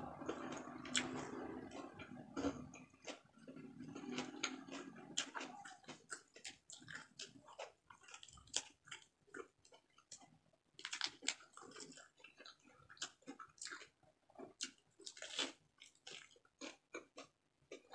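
A person chewing and crunching fried fish wrapped in fresh lettuce: scattered short crunches and wet mouth clicks, quiet and irregular.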